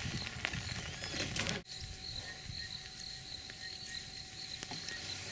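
Bush ambience: an insect chirping steadily at a high pitch, about three pulses a second, over low steady background noise. The background changes abruptly about a second and a half in.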